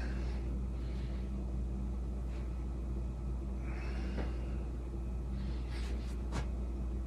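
A person breathing out in audible puffs while doing repeated stretching pulses, over a steady low hum. A few sharp clicks come at about six seconds.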